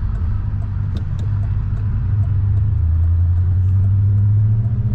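Car engine and road rumble heard from inside the cabin while driving: a steady low drone that grows a little louder about two seconds in.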